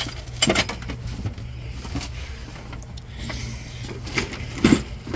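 Tools and gear being shifted around while someone rummages through a work van's cargo area: scattered knocks and clunks over a steady low hum.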